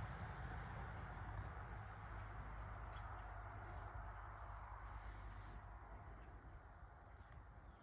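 Insects trilling steadily in a high, even tone with small regular chirps above it, over a faint hiss that slowly fades.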